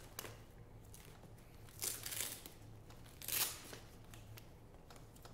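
Velcro straps inside a nylon rifle backpack being pulled open, two short rips about two and three and a half seconds in, amid light rustling of the pack's fabric and small knocks of gear being handled.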